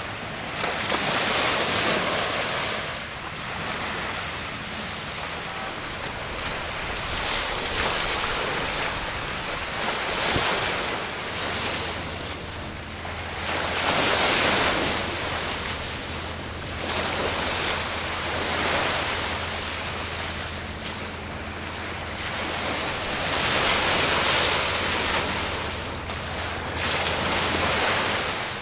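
Wind noise on the microphone over washing water, swelling and fading every few seconds. A low steady hum joins about eleven seconds in.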